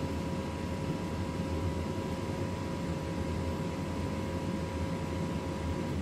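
Gas furnace running with a steady low hum and a faint two-note whine that cuts off just before the end. This is a furnace that keeps kicking on and off without staying lit.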